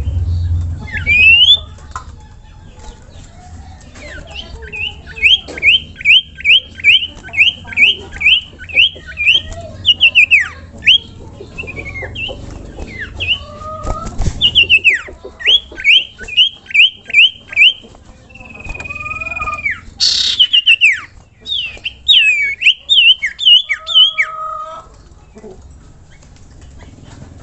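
Common iora (burung sirtu or cipoh) singing: bouts of sharp, quickly sweeping whistled notes repeated about twice a second, with one longer held whistle about two-thirds of the way through.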